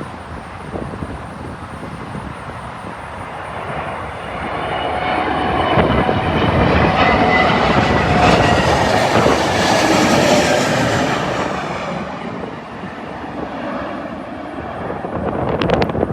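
Frontier Airlines Airbus A320-family jet flying low overhead: its engine roar builds, peaks with whining tones sliding down in pitch as it passes, then fades. Wind buffets the microphone throughout.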